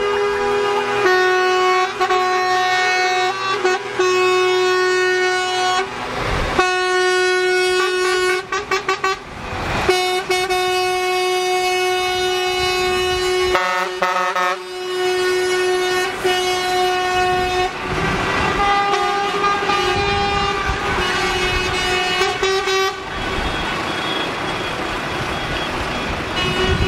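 Air horns of passing lorries and fire engines in a convoy, sounding long held blasts at several pitches one after another, with a few quick stuttering toots about eight and fourteen seconds in. The rumble of the heavy diesel vehicles driving past comes up between the blasts, strongest in the last third.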